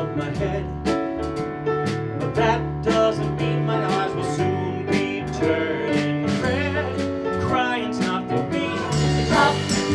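A song with a singer backed by a band: a steady drum beat, bass and guitar. The music grows a little louder near the end.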